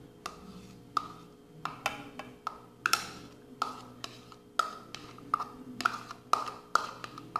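A metal spoon tapping and scraping against a plastic bowl as egg yolks are worked out of it: a run of sharp taps, about two a second, each with a short ring.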